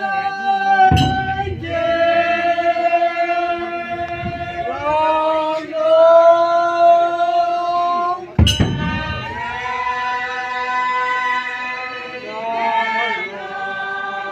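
A choir of men's and women's voices singing together in held notes, with two sharp clicks, about a second in and again past the middle, each followed by an abrupt change in the singing.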